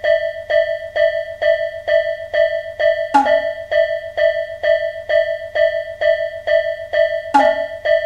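Level-crossing warning bell ringing, an even ding-ding repeating about three times a second, with two louder strikes about four seconds apart.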